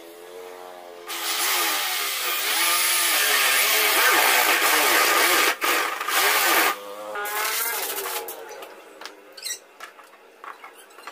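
Doliz BA670 corded drill boring a 35 mm concealed-hinge cup hole with a hinge boring bit into a laminated blockboard cabinet door. The motor whine wavers in pitch as the bit cuts, breaks off briefly about five and a half seconds in, then runs again and dies away around eight seconds.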